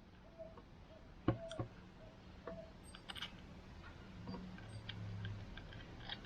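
Scattered light clicks and taps of hand tools and wiring being handled during crimping and heat-shrink work, with one sharper knock about a second in.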